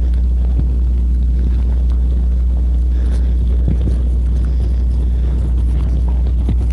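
A loud, steady low rumble that does not change, with a few faint knocks over it.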